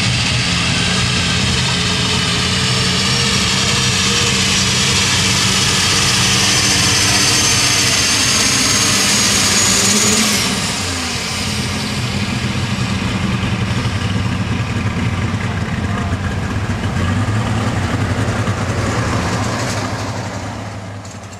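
John Deere light super stock pulling tractor's engine running flat out under load, with a high whistle that climbs slowly in pitch. About ten seconds in the driver lets off: the whistle stops, the engine note drops, and it runs on at lower revs, fading near the end.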